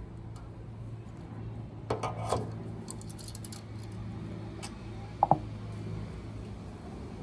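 Small metal clicks and clinks from setting rivets on a metal piece, with a sharp, loud double click and a brief metallic ring about five seconds in, over a steady low hum.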